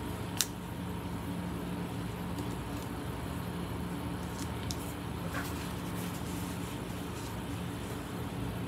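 Steady low room hum, like a fan or air conditioner running, with one sharp click about half a second in and a few faint ticks around the middle.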